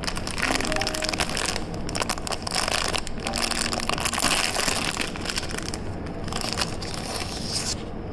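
Clear plastic film wrapped around a pack of paper cone coffee filters being crinkled and pulled open by hand, a dense crackling that stops shortly before the end.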